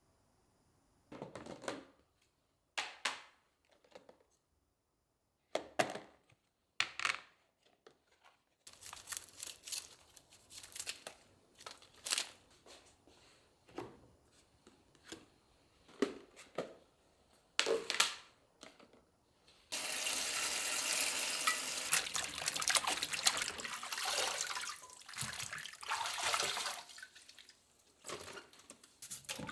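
Scattered kitchen knocks and clatters as things are handled, then a tap turned on about two-thirds of the way in, with water running steadily into a sink.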